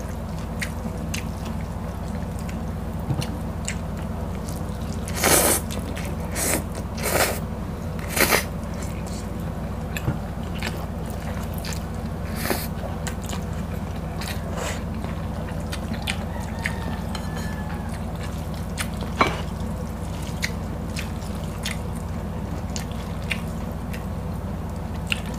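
Close-miked eating sounds: fried egg noodles slurped and chewed, with scattered small clicks and a few louder slurps between about five and eight seconds in, over a steady low hum.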